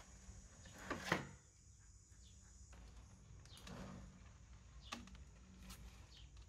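Faint clicks and taps from a metal ladle as batter is spooned into the cells of a brass cake mould, the loudest about a second in, over a quiet background.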